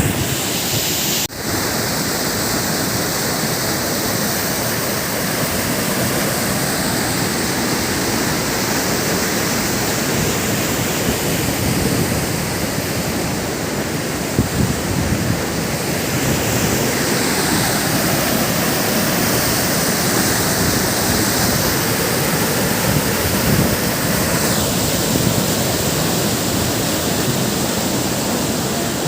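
Waterfall pouring steadily: a constant, dense rush of falling water, with one short click about a second in.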